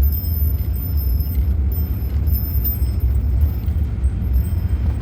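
Van's engine and road noise heard from inside the cab as a steady low rumble, with faint light clicks and jingles of loose items rattling.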